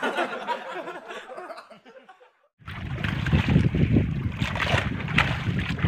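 A group of men laughing, fading out about two seconds in; after a brief silence, wind buffeting the microphone and sea water splashing against a small outrigger boat.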